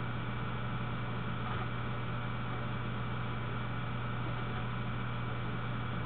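Steady low hum with an even hiss over it: background noise from the computer's recording input, with no other events.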